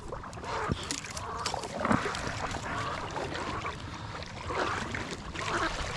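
Splashing and swishing in shallow marsh water among dry reeds, uneven, with a few short sharp strokes, as a duck is handled and struggles in the water.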